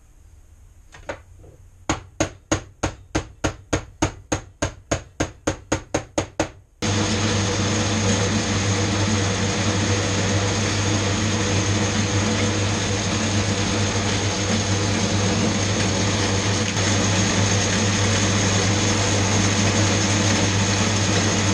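A quick, even run of sharp metallic strikes, about three to four a second for some five seconds. Then a loud steady machine noise with a low mains hum cuts in abruptly and runs on unbroken.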